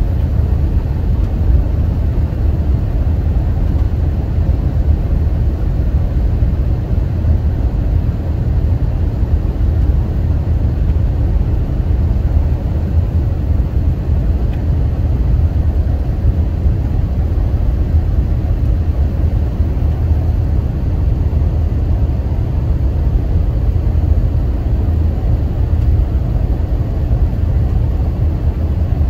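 Steady low rumble of a jet airliner's cabin in flight: engine and airflow noise heard from inside the cabin, even and unbroken.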